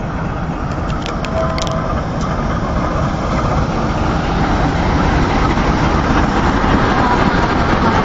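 Diesel locomotive and passenger coaches of an express train rolling past into the station, a steady rumble of engine and wheels on rail that grows louder, with a few sharp clicks about a second in.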